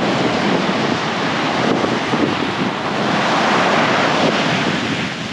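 Ocean surf breaking and washing up the beach, steady and loud, with wind buffeting the microphone.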